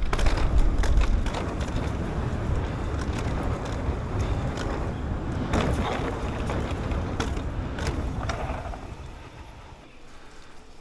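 Propain Ekano 2 AL e-mountain bike riding fast over rough trail: wind buffeting the microphone, with clattering knocks and rattles from the bike, a rattle the rider places somewhere in the front end. It quietens about nine seconds in as the bike slows.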